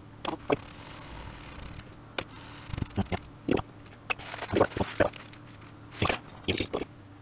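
Hands handling tools and a circuit board on a workbench: a scattered run of clicks, knocks and scrapes, with a soft hiss about a second in.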